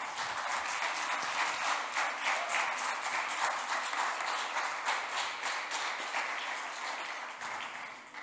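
Audience applauding: many hands clapping together, fading away near the end.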